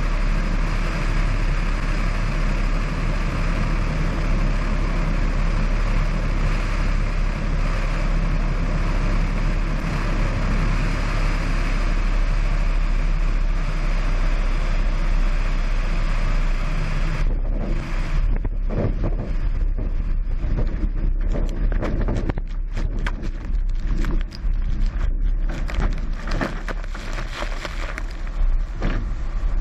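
Wind rushing over an outside-mounted camera on a Cessna 172 floatplane gliding with its engine throttled to idle, a steady loud rush. About seventeen seconds in, the floats touch down on the water and the steady rush gives way to irregular splashing and spray hitting the floats and camera.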